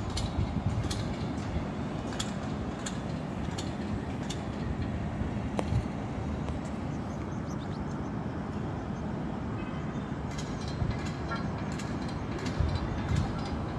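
Steady outdoor background noise with a light tick about every two-thirds of a second over the first few seconds, and a quicker scatter of ticks near the end.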